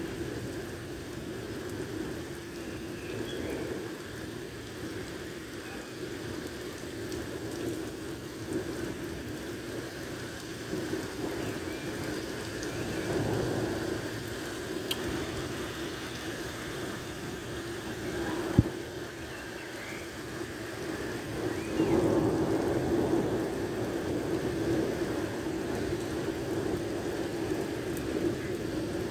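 Heavy rain pouring steadily onto a flooded street. A single sharp click comes about eighteen seconds in, and the sound swells louder from about twenty-two seconds in.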